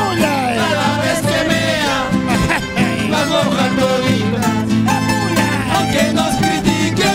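Live Andean carnival song: acoustic guitars strumming with several men's voices singing together, amplified through loudspeakers.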